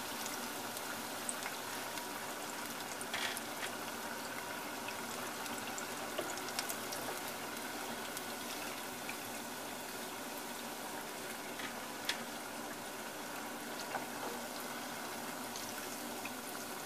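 Battered chicken gizzards deep-frying in a pot of hot oil: a steady sizzle with a few sharper pops scattered through it.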